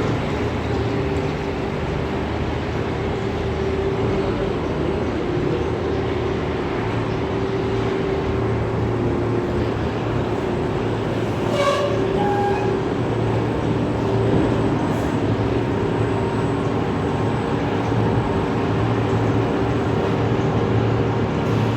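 Machinery running with a steady drone and a slightly wavering hum, with a brief clink about halfway through.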